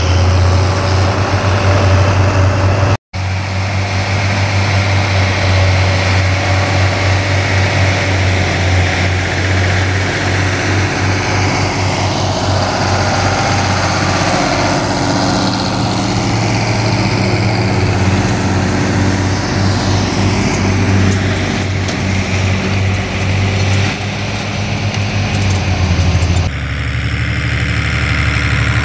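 Large farm tractor diesel engines running hard, led by a John Deere 7800 pulling a heavy cultivator, with a steady deep engine note. The sound cuts out for an instant about three seconds in and changes abruptly near the end.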